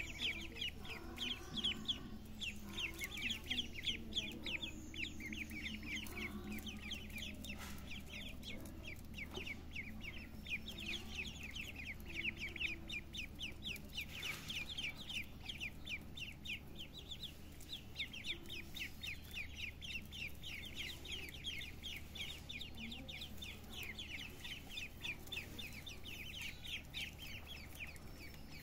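Ducklings peeping continuously: a rapid, overlapping stream of short high-pitched peeps from several birds at once.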